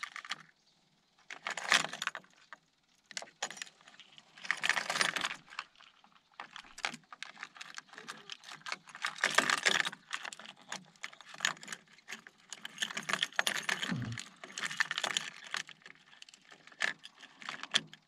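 Metal fishing lures and tackle jangling and clicking in irregular bursts, as when rummaging through a tackle box.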